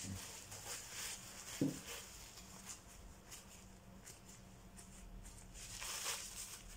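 Faint rustling and dabbing of a paper tissue pressed onto wet watercolour paper to blot the paint, with one soft knock about a second and a half in and a louder rustle near the end.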